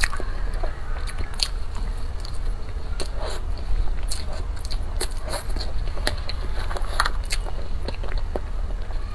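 Eating soft sponge cake and cream from a tin with a metal spoon: chewing and mouth sounds, with short sharp clicks now and then as the spoon scrapes and taps the tin. A steady low hum runs underneath.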